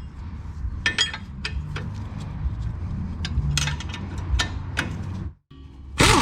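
Scattered metallic clicks and clinks of tools being handled on the truck's front hub, over a steady low hum. The sound drops out briefly, then a sudden loud burst starts just before the end.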